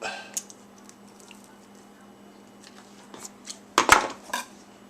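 Rose pruners cutting a raw turkey neck in two: a few light clicks and handling sounds, then a cluster of loud snaps about four seconds in as the blades go through the neck bone.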